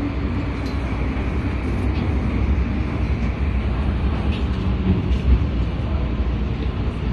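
MTR Tsuen Wan Line train running through the tunnel, heard from inside the carriage: a steady low rumble of wheels and traction motors, with a few faint high ticks.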